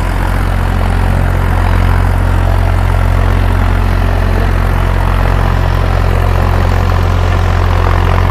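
Massey Ferguson 7250 46 HP tractor's diesel engine running steadily under load, driving an 8-foot rotavator through dry soil.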